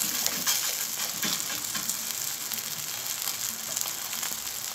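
Oil sizzling steadily under a stuffed, layered msemen flatbread frying in a hot, oiled pan.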